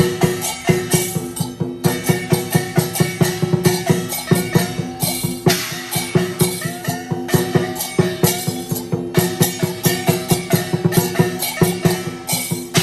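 Fast percussion music: a drum struck in a quick, steady beat, several strokes a second, with cymbal-like crashes over steady held tones and a gliding melody.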